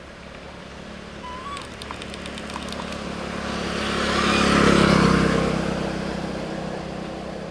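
A motor vehicle passing by: its engine grows louder to a peak about five seconds in, then fades away.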